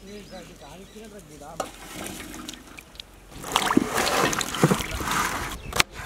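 Water splashing and sloshing in a steel bowl as hands wash green bell peppers and green chillies, loudest from about three seconds in. Faint voices come before it, and a single sharp knock comes near the end.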